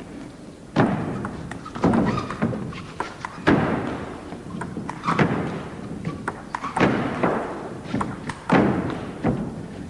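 Table tennis rally: the ball knocking off the bats and the table, a sharp knock every second or so, each trailing off briefly.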